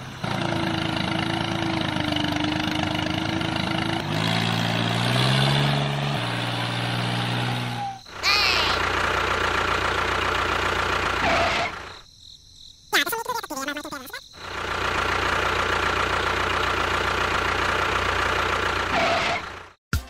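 Tractor engine running steadily, cutting out for about two seconds a little past halfway and then running on.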